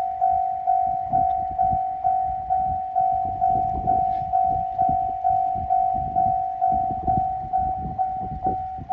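Japanese railway level-crossing alarm ringing: one electronic bell tone struck about twice a second, each strike fading before the next, over a low rumble.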